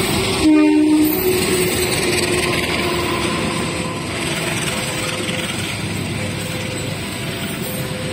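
Passenger coaches rolling slowly past on steel wheels, a steady rumble of wheels on rail joints. Faint squealing tones come and go as the train brakes into the station, with a brief louder tone about half a second in.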